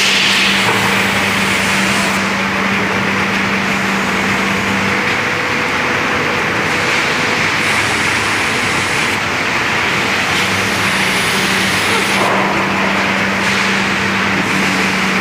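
Steady factory machinery noise with a hissing upper edge and a low hum that stops about five seconds in and comes back about ten seconds in.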